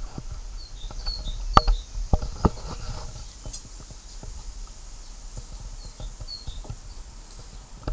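Small birds chirping in short high notes, in two little groups, about a second in and again about six seconds in. A few sharp clicks come in the first three seconds, over a low rumble.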